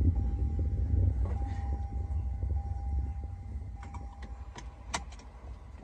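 Low, steady rumble of a car's road and engine noise heard inside the cabin while driving, with a faint steady high tone over it. A few light clicks come near the end.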